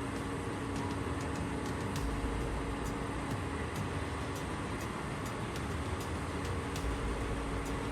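Heavy machinery's diesel engine running steadily with a low rumble, with scattered faint clicks throughout.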